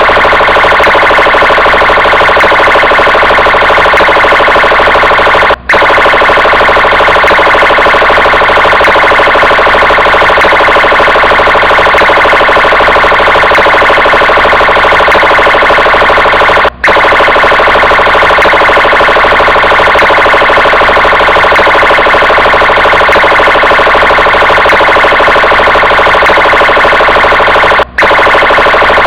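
Brazilian police car siren sounding loudly and without pause, dropping out for a split second three times, about eleven seconds apart.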